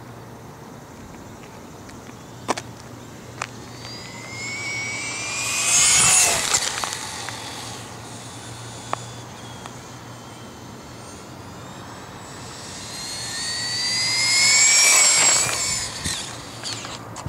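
High-pitched whine of an RC truck's Mamba Max 5700kv brushless motor and drivetrain on two speed passes, each climbing in pitch and loudness as it approaches and dropping as it goes by. A few sharp clicks come before the first pass.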